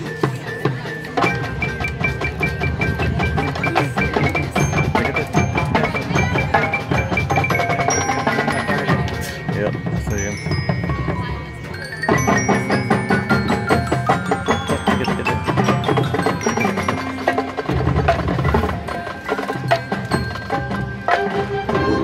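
High school marching band playing its field show, with the front ensemble's mallet percussion to the fore: quick descending runs of bell-like notes over struck percussion. Just before the midpoint the music thins briefly, then the full band comes back in louder.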